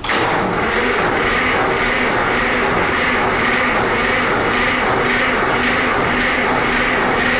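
Detroit Diesel 1-71 single-cylinder two-stroke diesel being cranked over on a cold start without ether, a loud steady run with a regular pulse that starts and stops abruptly.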